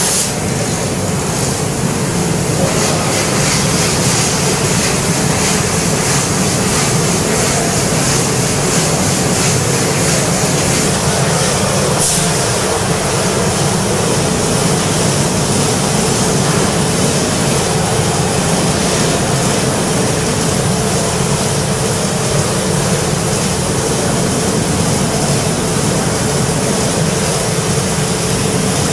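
CNC laser cutter cutting 1 mm mild steel sheet: a steady hiss of assist gas and machine noise, with a steady hum beneath.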